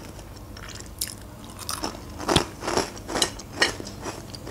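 Close-up crunching as a mouthful of dry bread croutons (sukhariki) is bitten and chewed: a run of crisp crunches about twice a second through the middle, the loudest about two and a half seconds in.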